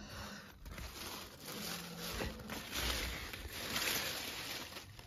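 Rustling and scraping of leafy vegetable plants as a hand pushes through and handles them, coming in uneven waves and loudest about three to four seconds in.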